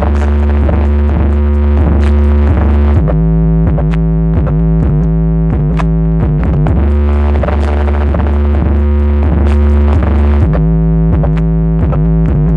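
Electronic music with a heavy, sustained synthesizer bass and a steady beat, played loud on a Fiat Uno Economy's car sound system.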